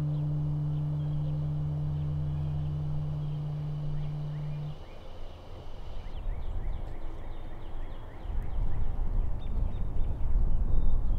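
A held low note of the score sounds and stops about five seconds in. Outdoor ambience follows, with small bird chirps and a low rumbling background noise that grows louder near the end.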